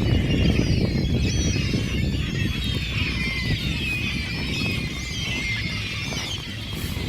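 A large flock of seagulls and ducks calling all at once: many overlapping high, squealing calls over a steady low rumble.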